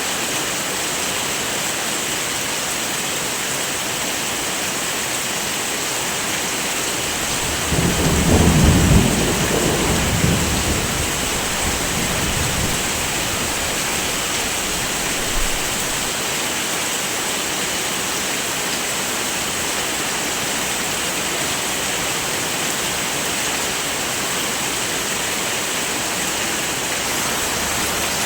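Steady heavy rain with a roll of thunder that swells up about eight seconds in, is loudest around nine seconds and rumbles away over the next few seconds, followed by a brief low thump.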